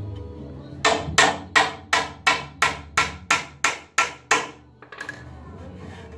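A hammer driving a nail into a pallet-wood board, with about eleven quick strikes, roughly three a second, each ringing briefly. The strikes stop about four and a half seconds in.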